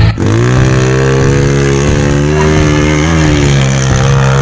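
Dirt bike engine climbing a steep dirt slope. It revs up at the start, then holds steady high revs, with a brief rise and dip in pitch about three seconds in.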